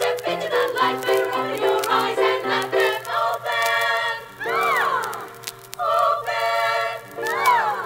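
A women's vocal group singing wordless close harmony on a 1975 LP recording, with two swooping vocal glides that rise and fall, one about halfway through and one near the end.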